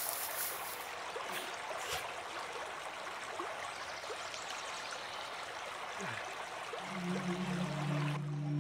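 A shallow rocky stream running and babbling steadily. Near the end a low sustained note of music swells in underneath.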